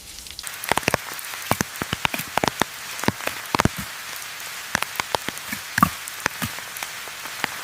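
Steady rain hiss with many heavy drops striking close by as sharp, irregular ticks, starting about half a second in.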